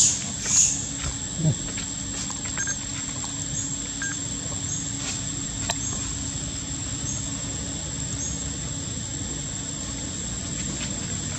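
Outdoor ambience: a steady high-pitched drone throughout, with two louder high squeaks right at the start. After that a short high chirp repeats a little faster than once a second.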